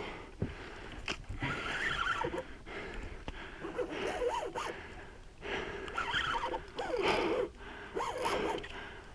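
A man gasping and breathing hard, with short wordless exclamations coming every second or two, while fighting a large hooked roosterfish on rod and reel.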